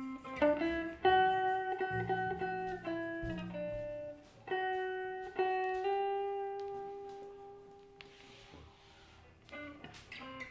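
Guitar playing an improvised line of plucked single notes, some left to ring. A long note rings out and fades in the middle, and quicker picked notes follow near the end.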